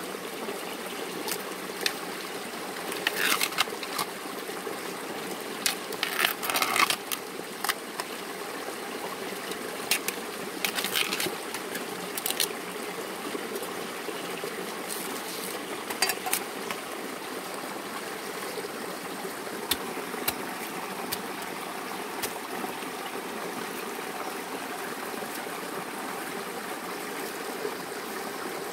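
Steady running stream water, with scattered crisp snaps, crackles and knocks as bamboo shoots are stripped of their sheaths and cut with a machete, busiest in the first half.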